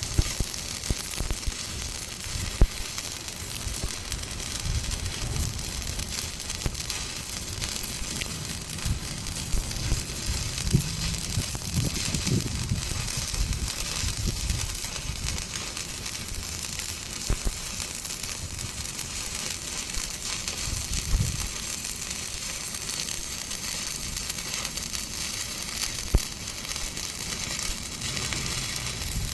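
Electric arc welding on a tractor implement hitch: a steady crackling sizzle.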